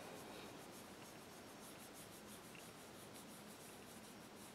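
Faint rubbing of a sponge-tipped applicator buffing pearlized pigment powder onto a polished plastic practice nail, in quick even strokes a few times a second.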